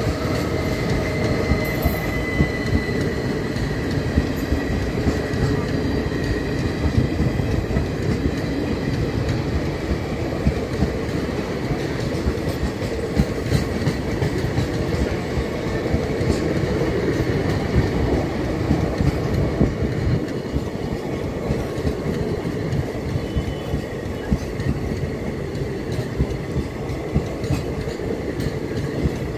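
Indian Railways ICF passenger coaches rolling past close by in a steady, continuous rumble of wheels on rail, with repeated clickety-clack as the wheels cross rail joints. A faint high wheel squeal sounds for a few seconds near the start.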